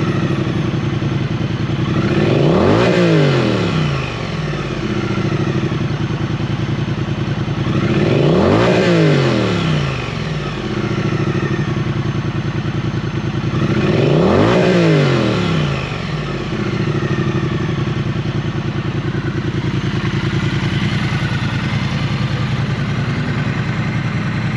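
2022 Triumph Street Twin's 900 cc parallel-twin engine idling, with the throttle blipped three times about six seconds apart. Each rev rises and falls over about two seconds before settling back to idle.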